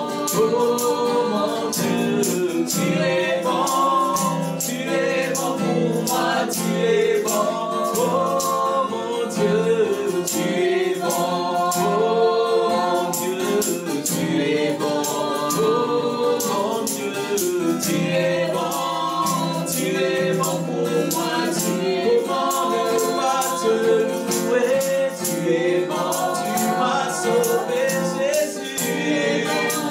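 A man and a woman singing a gospel worship song over a strummed acoustic guitar, with a tambourine and hand claps keeping a steady beat.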